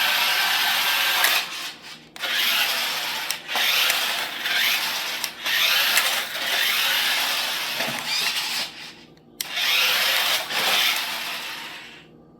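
Toy RC stunt car's small electric drive motors whirring and its wheels scrubbing on the floor in hover-drift mode, in runs of one to three seconds with brief breaks as direction changes. It stops near the end.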